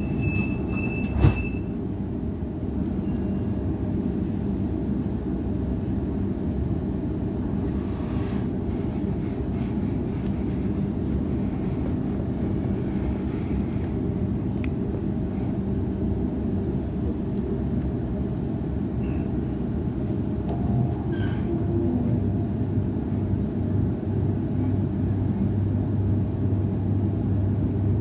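Inside a Sydney Trains Waratah A-set electric train pulling out of a station. A high steady warning beep ends and the doors thud shut about a second in, then comes the steady low hum and rumble of the train getting under way and gathering speed, a little louder near the end.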